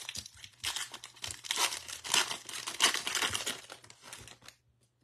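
Wrapper of a Panini Chronicles football card pack being torn open and crinkled by hand: a dense, uneven crackle that stops about four and a half seconds in.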